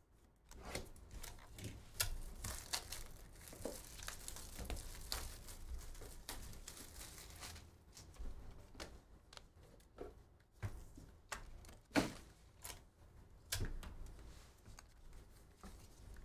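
Packaging wrap being torn and crinkled off sealed trading-card boxes. A few seconds of crinkling come in the first half, followed by scattered sharp clicks and taps as the boxes are handled.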